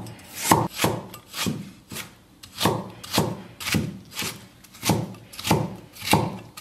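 Chinese cleaver slicing ginger on a wooden chopping board: a steady run of sharp knocks as the blade cuts through and strikes the board, about two a second.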